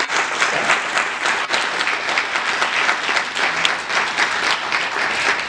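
A large audience applauding: many hands clapping in a dense, steady patter.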